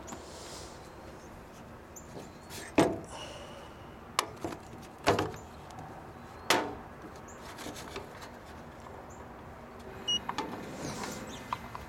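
Several sharp knocks and clicks, a few seconds apart, from handling the pellet grill and its temperature gear, then a brief high beep near the end.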